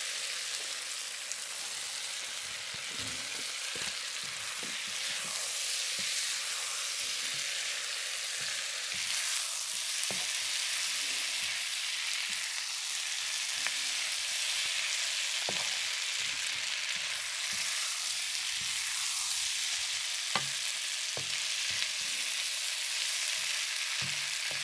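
Sliced beef and vegetables sizzling steadily in an electric wok as they are stir-fried, with a plastic spatula now and then scraping and knocking against the pan.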